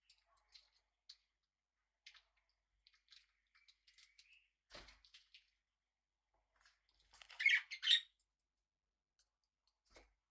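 Small pet parrots: a short burst of chirping and squawking about seven to eight seconds in, the loudest sound, among scattered soft clicks and taps.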